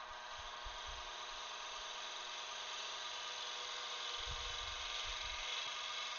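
Wood lathe running with a turning tool cutting a spinning cottonwood blank: a steady motor hum under a hiss from the cut that grows a little louder after about three seconds, with a few dull low thumps.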